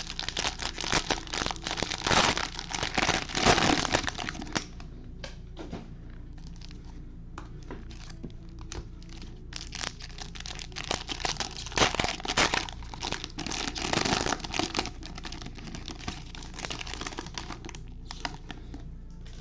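Cellophane trading-card pack wrappers crinkling and tearing as they are opened by hand, in two loud spells of crackling, one at the start and another from about ten seconds in, with lighter rustling between and after.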